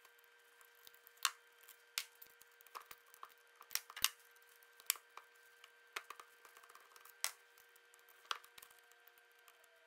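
Irregular sharp clicks and taps, about a dozen, from small metal parts and tools knocking against a Tolomatic air cylinder's head as it is taken apart by hand.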